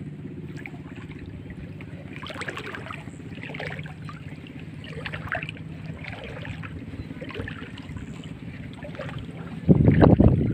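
A small boat engine running at a steady low hum. About ten seconds in, a loud rush of wind on the microphone comes in over it.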